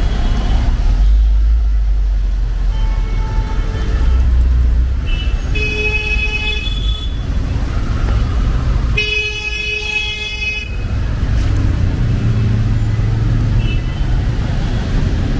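Busy road traffic running steadily, with a vehicle horn honking twice: a short honk about six seconds in and a longer one of about a second and a half a few seconds later.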